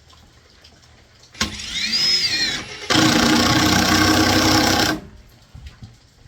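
Power screwdriver driving a screw through a barrel strap into a wooden 2x4 frame. Its motor whines up and back down about a second and a half in. Then it runs loud and steady for about two seconds as the screw tightens, and stops suddenly.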